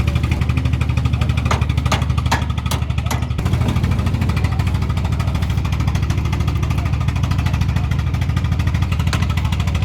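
An engine running steadily with an even, rapid low pulse. A few sharp metallic knocks come between about one and three seconds in, and once more near the end.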